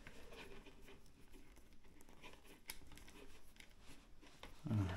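Faint, scattered clicks and light handling noise of hands fiddling small M4 screws into place.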